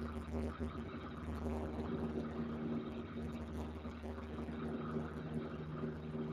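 Light aircraft's engine and propeller droning steadily in cruise, heard from inside the cabin, with the rush of airflow over the airframe.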